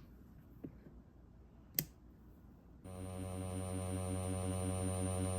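Two short clicks, then about three seconds in an electronic weird-sound generator starts a steady buzzing drone with many overtones and a fast, even warble, plus a thin high whine above it.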